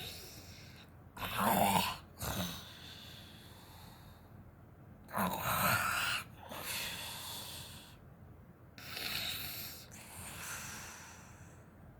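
A woman snoring in her sleep, about three breaths in all. The loudest snores, with a low rasp, come about a second in and about five seconds in, and a softer breath follows near nine seconds.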